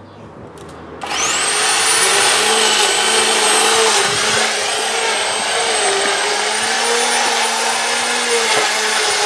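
Electric garden power tool motor switching on about a second in, spinning up quickly and then running at full speed with a steady high whine.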